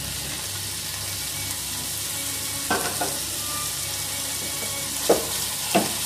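Raw beef mince frying on high flame in a nonstick pan, a steady sizzle as its water cooks off. A few sharp knocks come in the second half, the loudest near the end as a spatula starts stirring against the pan.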